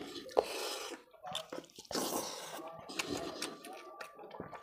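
Wet eating sounds from hand-eating fish curry and rice: fingers squishing through the curry-soaked fish and rice, with scattered short smacking clicks from chewing.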